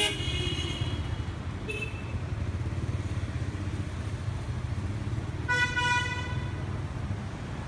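City street traffic: a steady low rumble of motorbikes and cars going by, with vehicle horns honking. One horn sounds right at the start, a short high beep comes just under two seconds in, and a louder honk of about half a second comes past five seconds in.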